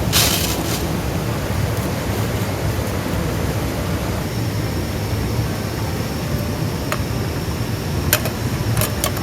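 A steady rushing noise, with a short sharp burst at the start and a few sharp clicks near the end.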